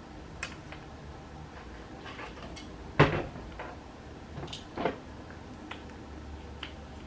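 A few sharp knocks and clicks of small objects being handled and set down on a hard surface, the loudest about three seconds in and another near five seconds.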